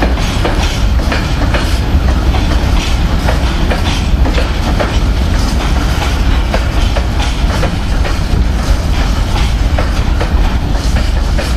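Freight hopper wagons rolling past on the rails: a steady loud rumble of wheels on track, with a rapid, irregular clatter of wheel clicks.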